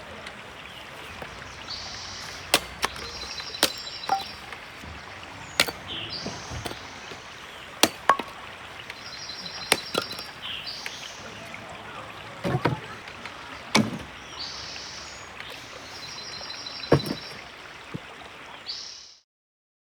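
Irregular sharp chopping knocks on wood, about a dozen over the stretch, some heavier than others, over a steady rush of river water. The sound cuts off abruptly shortly before the end.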